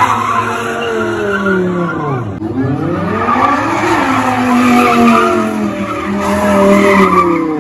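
Lamborghini Huracán's V10 revving up and down over and over as the car spins donuts, with its rear tyres screeching against the pavement.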